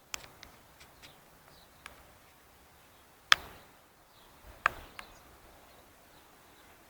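Scattered sharp knocks and clicks at uneven intervals, the loudest a little over three seconds in and another strong one between four and five seconds in, over a faint steady outdoor background.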